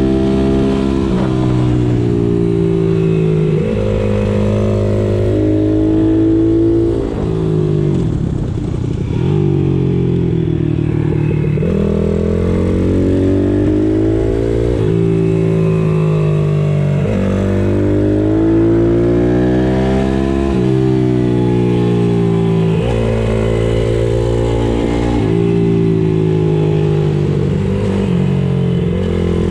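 Pit bike's small single-cylinder four-stroke engine being ridden hard around a track. Its pitch climbs and falls every few seconds as it accelerates, shifts and slows, with a short drop in the revs about seven seconds in.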